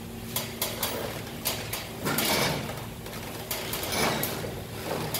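Metal clicks and knocks, with two longer scraping creaks about two and four seconds in, as a steel pipe slipped over a bent vintage motorcycle handlebar is levered to bend the bar back straight.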